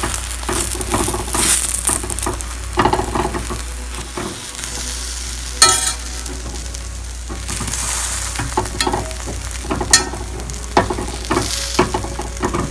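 Chicken-keema stuffed paratha frying in oil and ghee in a hot pan, sizzling steadily. A metal slotted spatula scrapes and clicks against the pan as it presses the paratha, with two sharp clicks standing out about six and ten seconds in.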